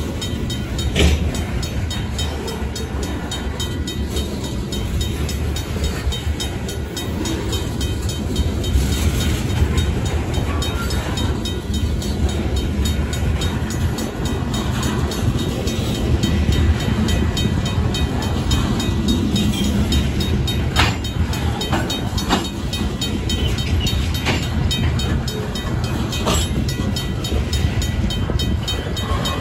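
Covered hopper cars of a freight train rolling past close by: a steady low rumble of steel wheels on the rails, broken by a few sharp clanks, about a second in and again twice around two-thirds of the way through and once more near the end.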